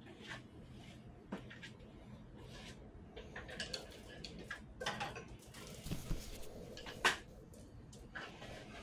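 Handling noise: scattered light knocks, clicks and rustles, busiest in the middle, with one sharper knock about seven seconds in.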